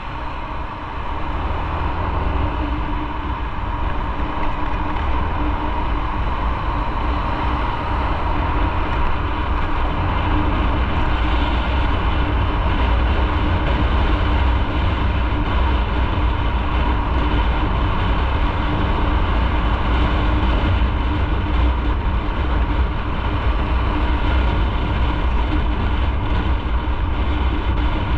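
Motorcycle running on the move, its engine mixed with wind rushing over the microphone and road noise. It grows louder over the first few seconds as the bike picks up speed, then holds steady.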